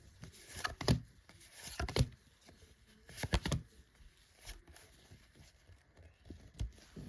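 Foil wrapper of a Pokémon card booster pack being torn and crinkled while the cards are handled: short, scattered rustles and taps.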